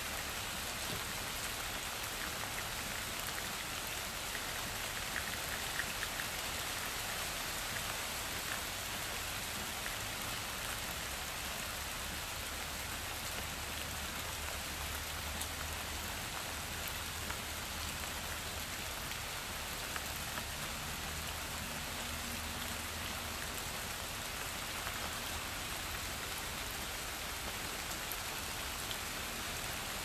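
Steady rain falling on leafy trees, an even patter with no letup. A faint low hum sits under it for a while in the middle.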